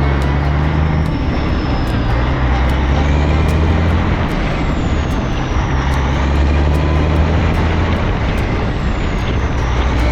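Vehicle driving at a steady speed: a continuous low engine drone with road noise.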